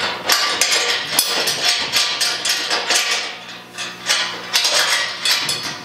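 Stainless steel fittings and valve parts clinking and knocking against each other and the tank as they are fitted by hand: many quick, irregular metallic knocks.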